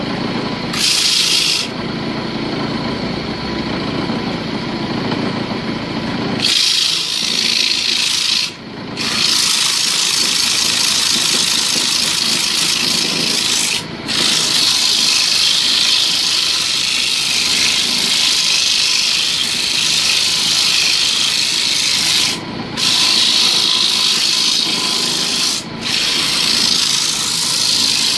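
Wood lathe running with its motor humming and a steady whine, while sandpaper is pressed against the spinning wooden bowl blank. A brief touch about a second in, then from about six seconds in a steady hissing rasp that breaks off briefly four times.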